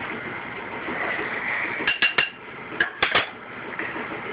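Metal spoon clinking against a ceramic bowl of dry rub, a quick cluster of sharp clinks, one with a short ring, about halfway through, over a steady background hiss.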